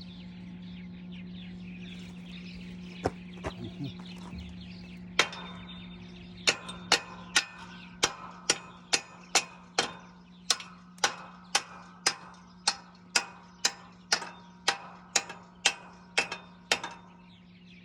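Steel being struck with a hammer on a welded chisel-plow repair: a few separate blows, then a steady run of sharp, ringing strikes about two a second that stops shortly before the end, over a steady low hum.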